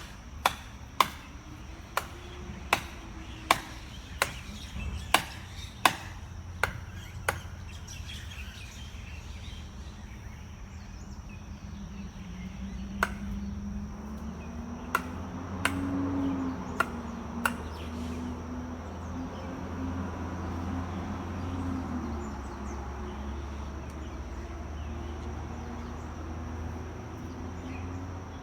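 A series of sharp knocks, about one every 0.7 seconds for the first seven seconds, then a handful more, scattered, between about 13 and 17 seconds in. A low hum that wavers in pitch comes up in the second half, and a thin steady high tone runs throughout.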